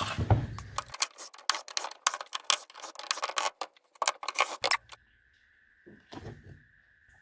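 Melamine-board mould box being pulled apart from around a cured silicone mould: a quick run of irregular clicks and clatters of hard boards and parts being handled, stopping about five seconds in.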